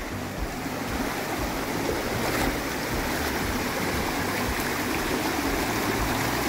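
Shallow mountain stream rushing over rocks in small rapids, a steady wash of water.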